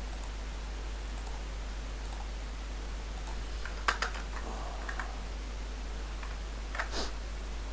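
A few isolated computer keyboard key presses, two of them sharper, about four seconds in and near the end, over a steady low hum.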